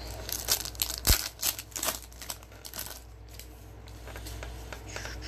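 Crinkling and crackling of trading cards and their packaging handled in gloved hands: a quick run of sharp crackles and clicks over the first three seconds, loudest about a second in, then fainter rustling.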